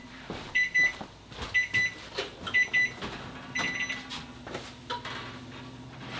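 A kitchen appliance's electronic beeper sounding short high beeps in clusters of two or three, about once a second, stopping about four seconds in, among a few clicks and knocks of handling. A low steady hum runs under the second half.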